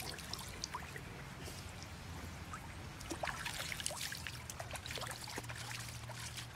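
Hands scooping and splashing water in a shallow stream, with irregular drips and splashes falling back into the running water over the stream's steady trickle.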